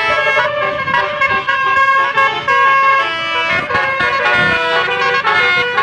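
Bus's Basuri musical air horn sounding a telolet melody: several horn tones sound together and change pitch in steps.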